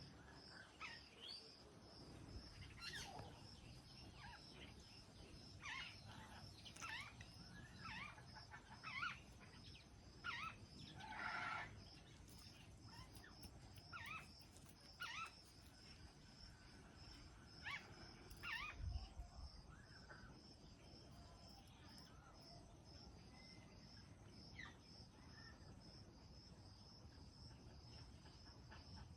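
Faint insect chirping, like crickets, as a steady high pulsing trill throughout, with scattered short bird chirps over it.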